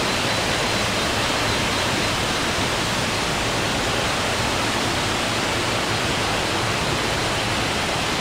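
A waterfall's falling water rushing steadily, an even, unbroken noise.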